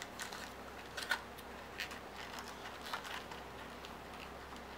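Faint handling noise of a small cardboard box: a few soft clicks and rustles, roughly one a second, as fingers fold and close its flaps.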